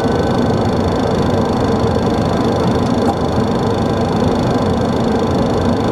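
Steady cabin noise inside a Boeing 737 in flight: a broad rushing drone of engines and airflow, with a thin high whine held over it.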